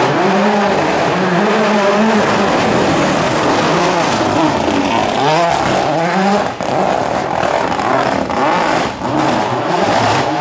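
Rally car engine revving hard, its pitch climbing and dropping again and again through gear changes and braking as the car passes and pulls away, with a few short sharp cracks along the way.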